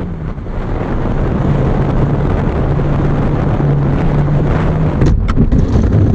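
Heavy wind rush buffeting the microphone over a low, steady hum from the small electric RC plane motor, with two sharp knocks about five seconds in.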